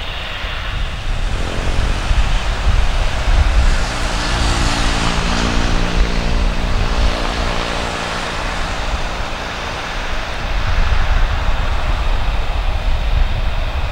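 Airbus A320-214 jet engines on final approach: a steady jet roar with a droning hum whose pitch shifts slightly, growing louder about a second and a half in, over a low rumble.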